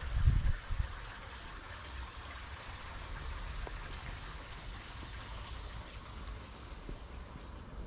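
Water trickling steadily into a rock grotto's pool, an even hiss of running water. A few low gusts of wind buffet the microphone in the first second.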